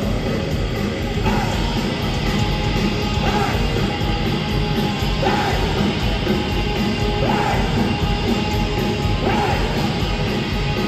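Live heavy rock band playing loud, distorted music at a concert, with a short rising sweep in the sound about every two seconds.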